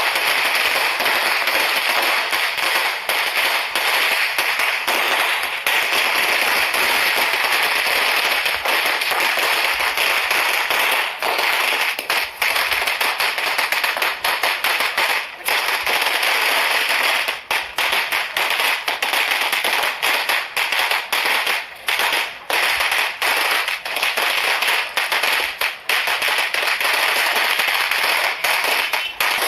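Firecrackers going off in a loud, rapid, nearly unbroken crackle, with a few short breaks in the second half.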